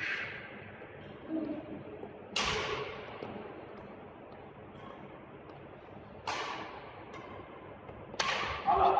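Badminton rackets striking a shuttlecock: sharp cracks that ring on in a large hall, one about a quarter of the way in, one about two-thirds in, and two in quick succession near the end.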